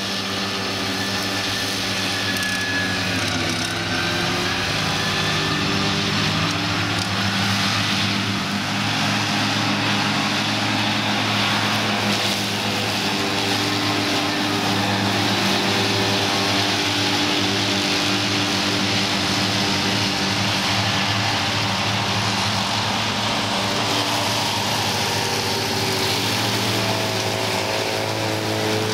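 New Holland tractors' diesel engines running under load with their disc mowers cutting grass, a steady mechanical drone. Its pitch dips and shifts a few seconds in and again near the end.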